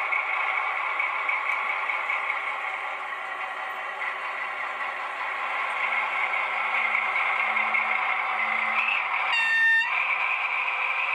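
Model diesel locomotive with an onboard sound decoder pulling a train away: a steady diesel engine sound with the running noise of the model, growing a little louder as the train gets moving. One short horn toot about nine and a half seconds in.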